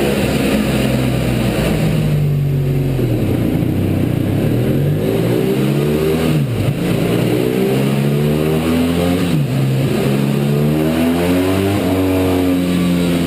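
BMW F800GT parallel-twin engine through an aftermarket Scorpion silencer, running under load on a rolling-road dyno. Its pitch climbs in long rising sweeps, with a short sharp drop about halfway through and another a few seconds later before it climbs again.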